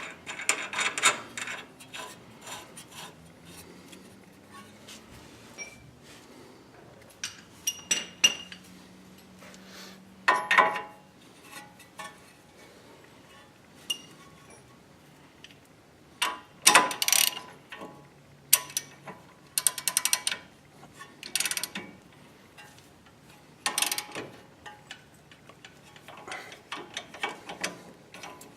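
Hand tools on a tie rod end's castellated nut: bursts of ratchet-wrench clicking and metal clinks, in irregular spells separated by short pauses.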